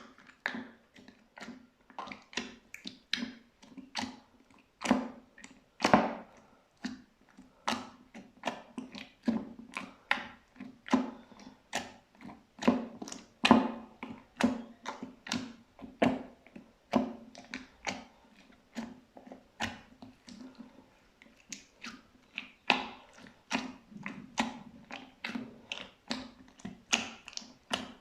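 Slime being pressed and mixed by hand, giving an irregular run of sharp clicks and pops, about two to three a second.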